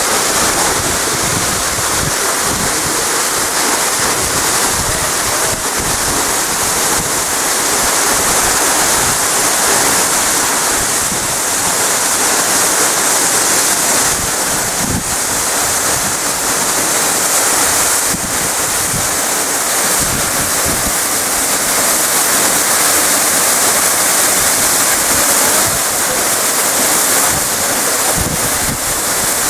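Loud, steady roar of a tall waterfall crashing down, its spray hissing, with wind buffeting the microphone now and then.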